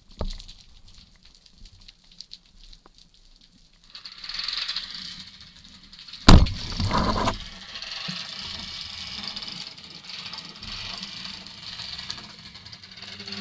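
Underwater, a rubber-band speargun fires with one sharp crack about six seconds in, followed by a brief rattle of the shaft and line. Before and after the shot there is a steady hiss of water moving past the diver.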